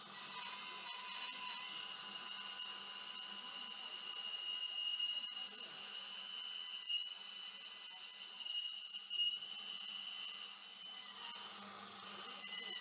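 Bandsaw running and ripping a wooden batten lengthwise: a steady high-pitched whine with a low hum underneath, easing briefly near the end.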